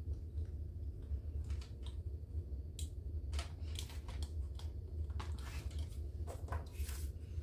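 A frosted plastic divider sheet being handled and fitted onto the metal rings of an A6 six-ring binder: soft plastic rustles and a few light clicks, scattered and mostly in the second half, over a steady low hum.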